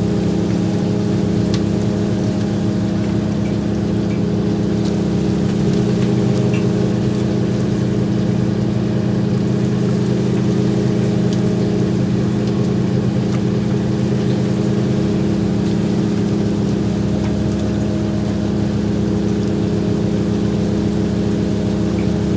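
Fishing boat's engine machinery running with a steady drone, a lower tone joining from about five seconds in until about fifteen seconds.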